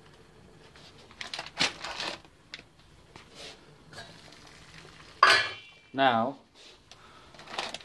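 Clinks and clatter of pots and utensils on a stove, a cluster of sharp knocks about a second or two in and a few lighter clicks after. A brief wordless vocal sound comes near the end.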